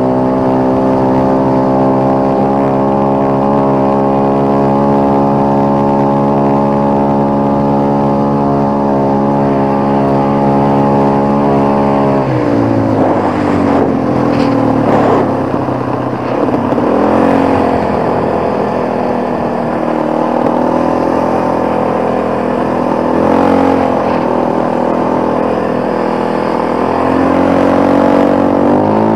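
Quad ATV engine under way at a steady speed, then about halfway through the revs drop and rise and fall unevenly as it slows, picking up again and settling near the end.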